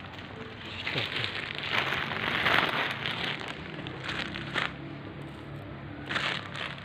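Plastic bag rustling and crinkling while dry cat food is shaken out onto concrete, in two spells: a long one from about a second in and a short one near the end.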